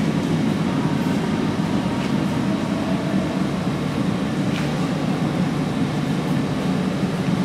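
Isuzu 6BD1-T turbocharged inline-six diesel engine running steadily on a test stand, with an even, unbroken low drone.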